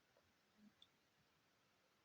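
Near silence: room tone, with a faint soft tap a little past half a second in and a tiny click soon after.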